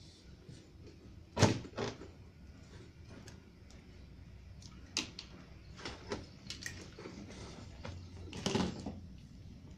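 Scattered clicks, knocks and rustles of hands working a bundle of computer power-supply wires with a thin metal tool and pulling off plastic cable ties, the sharpest click about a second and a half in.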